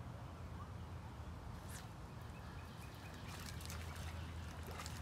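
Quiet riverside outdoor ambience: a steady low rumble, with faint scattered clicks and rustles starting about one and a half seconds in.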